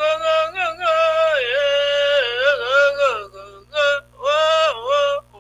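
A solo voice singing long held, wavering notes with no words. It breaks into a few shorter phrases with pauses in the last two seconds. A faint steady low hum lies under it.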